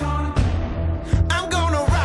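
Background music: a pop/hip-hop song with a heavy, pounding bass beat and drum hits, with a bit of sung vocal.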